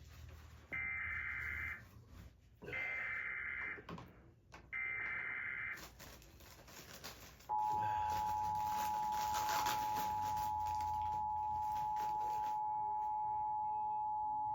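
Emergency Alert System tones from a DASDEC II encoder-decoder on cable TV. First come three SAME header data bursts, each a harsh warble about a second long. About seven seconds in, the steady two-tone attention signal starts and holds, announcing a tornado warning.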